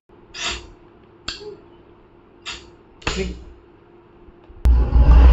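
Four short swishing bursts of sound effects played through a 5.1 home theatre speaker system. About 4.6 s in, a loud electronic music track with heavy subwoofer bass starts abruptly.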